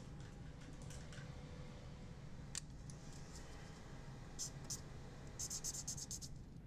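Pen strokes on paper: a few isolated taps, then a quick run of about ten short scratchy strokes as lines are dashed onto the sheet, over a low steady hum.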